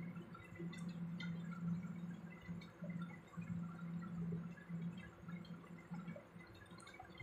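Faint wet sloshing and light clicks of a wire whisk stirring thin batter in a plate, over a steady low hum.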